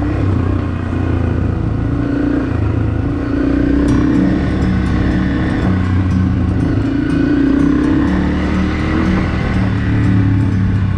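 Motorcycle engine running under way on a dirt trail, its pitch rising and falling with the throttle. A run of light, evenly spaced clicks starts about four seconds in.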